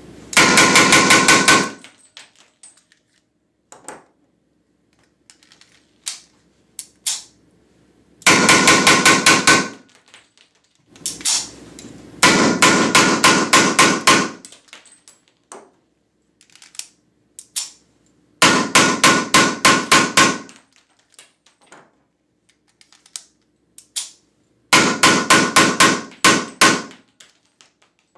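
Weihrauch HW94 blank-firing pistol shooting SK Schönebeck blank cartridges in fast strings of several shots a second, its muzzle inside a foil-wrapped box. Five or six strings come a few seconds apart, the pistol hot from sustained firing in a 1000-round endurance test.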